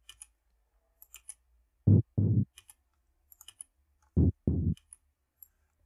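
Programmed electronic kick-tom drum sample playing a sparse pattern: two pairs of short, low tom-like hits, the hits in each pair about a third of a second apart, with faint clicks in between.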